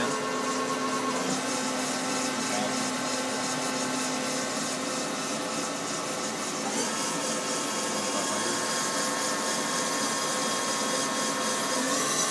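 Right spindle of a Wasino TH-102 CNC lathe running unloaded at about 1500 RPM, a steady mechanical whine. Its pitch steps up twice, about seven seconds in and near the end, as the spindle speeds up.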